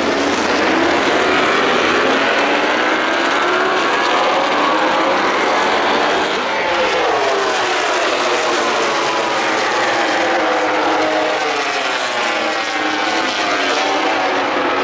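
Several Grand Prix racing motorcycles running hard past the track edge, their engine notes overlapping and sliding up and down in pitch as the bikes come by.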